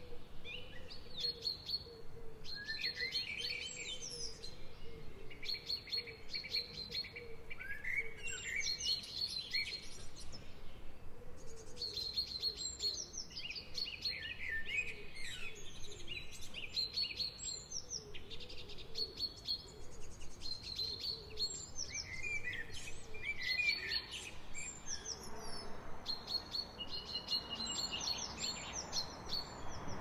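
Several woodland songbirds singing at once, overlapping phrases of high whistles, chirps and trills repeating every second or two. A soft, even hiss comes in near the end.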